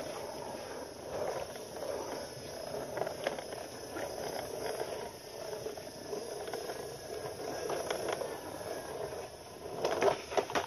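Plastic toy truck's wheels rolling and scraping along rough concrete, with a few louder plastic knocks near the end as it is set down.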